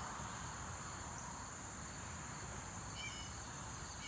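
Steady high-pitched drone of an insect chorus over a faint even background noise, with one short chirp about three seconds in.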